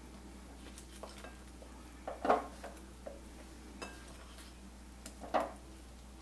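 A plate clinking and tapping against the rim of a crockpot as sliced bell pepper strips are pushed off it into the pot by hand: a few light taps, with two louder clinks a little past two seconds in and again past five seconds in.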